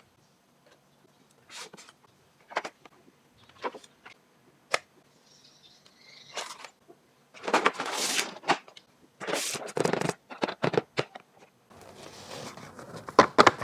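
Hands unboxing toys: scattered clicks and taps, then about three seconds of dense crinkling and scraping of the packaging a little past halfway.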